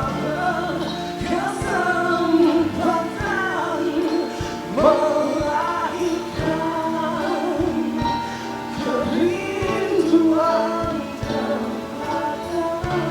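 Live performance of a Malay ballad: a vocalist singing sliding, ornamented phrases over sustained band accompaniment.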